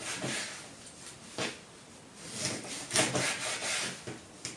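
A kitchen knife sawing through pollock pieces and scraping against the cutting board, in short rasping strokes that come thickest in the middle, with a small knock near the end.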